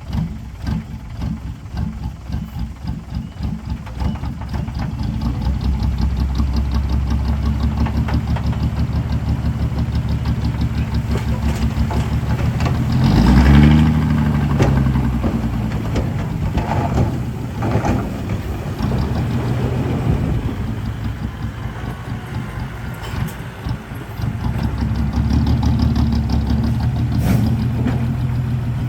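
Heavy diesel engine of a construction machine running, with a brief rise and fall in engine speed about halfway through.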